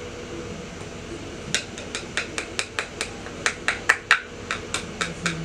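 Plastic jar of Laura Mercier translucent loose powder being tapped and knocked by hand. Starting about a second and a half in, it gives a rapid, regular run of sharp clicks, about five a second.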